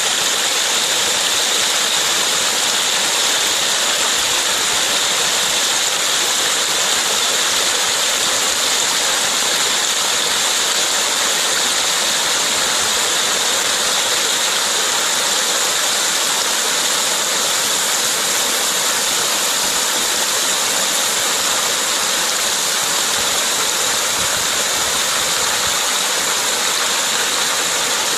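Mountain stream water rushing steadily and evenly.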